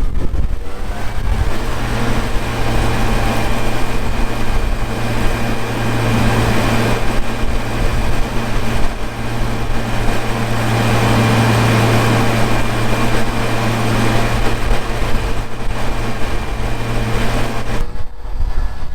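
Heavy diesel farm machinery running steadily under load, a strong low hum with a noisy mechanical rush over it. Its pitch rises in the first couple of seconds, and the hum cuts off abruptly near the end.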